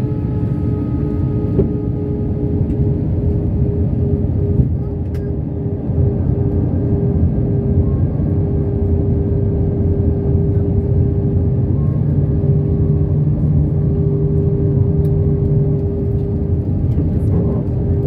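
Steady cabin noise of an Airbus A320 in flight, a constant low rumble of engines and airflow with a steady droning hum.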